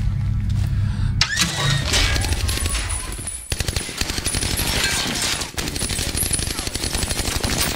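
Automatic rifle fire in long, rapid bursts, starting about a second in, with two brief breaks.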